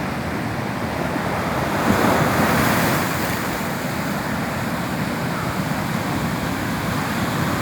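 Atlantic surf washing onto a beach: a steady rush of waves, with one wave breaking louder about two seconds in.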